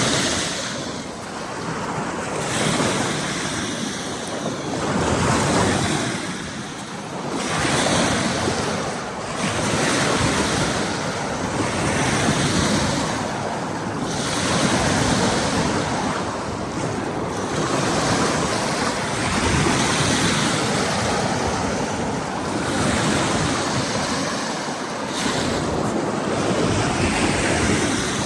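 Ocean surf breaking on a beach, the noise swelling and falling every few seconds, with wind buffeting the microphone.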